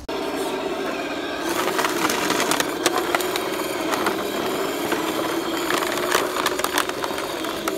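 Homemade six-wheel-drive radio-controlled truck driving: its electric motor and gears whine steadily, the pitch dipping and coming back up about halfway through. Irregular sharp crackles and clicks run through it, from the wheels on rough ground.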